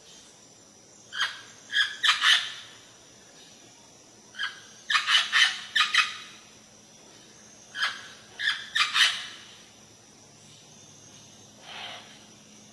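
Parrot squawking in short, harsh, loud calls, bunched in three quick clusters of several calls each, with one faint call near the end.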